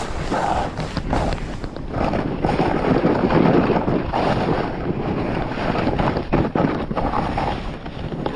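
Snowboard sliding and carving down snow, the board's edge scraping and hissing, with wind buffeting the microphone. The rush is loudest about three to four seconds in, with a few short scrapes or knocks.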